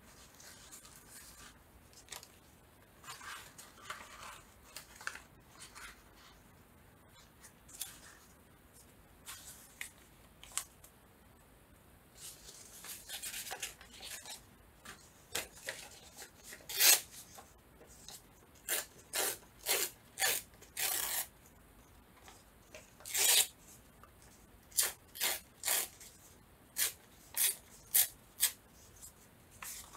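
Collage paper being handled: soft rustling at first, then from about halfway a quick run of short, sharp rasping strokes on paper, one or two a second.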